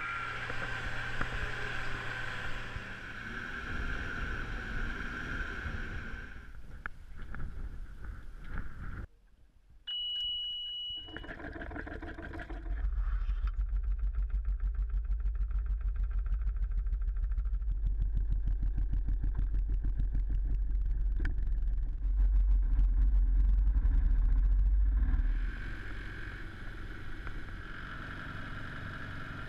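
A sailboat's auxiliary engine runs with a fast, even low pulse while the boat motors through the marina. It gets louder for a few seconds and then eases off near the end. Before the engine starts there is a steady whine over the first few seconds and a short high beep about ten seconds in.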